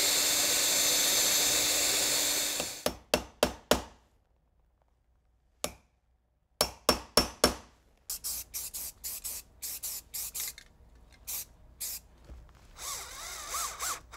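Cordless drill boring the latch hole into a wooden door jamb, running steadily for nearly three seconds. A series of sharp clicks and taps follows, then a short quiet gap and more clicks. Near the end the drill whirs briefly, driving a strike-plate screw.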